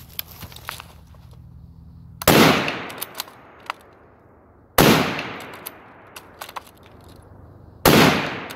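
Ruger Gunsite Scout bolt-action rifle fired three times, about two and a half to three seconds apart, each shot ringing out and fading over about a second. Between the shots the bolt is worked with short metallic clicks and clacks; the bolt is sticking at times.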